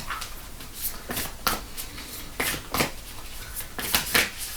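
Oracle cards being handled by hand: a series of separate short card snaps and clicks, about seven over four seconds.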